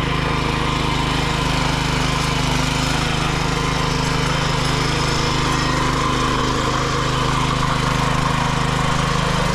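Walk-behind power tiller's small engine running steadily under load as its rotary tines churn through dry soil.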